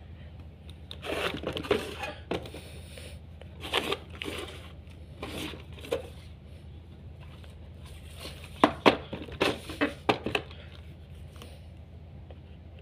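Plastic desk fan (Maspion F-18 DC) being handled: a series of knocks, clicks and rustles, with a cluster of sharp clicks about nine seconds in. A steady low hum runs underneath.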